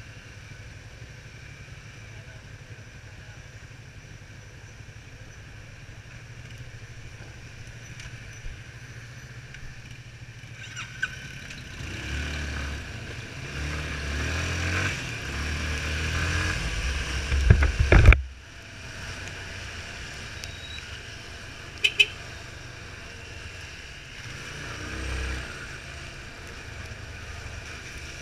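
Yamaha Fazer 250 motorcycle's single-cylinder engine idling in stopped traffic, then pulling away about eleven seconds in and riding between cars. The engine and wind rumble build to a loud peak about two thirds through and cut off suddenly. Two sharp clicks follow a few seconds later.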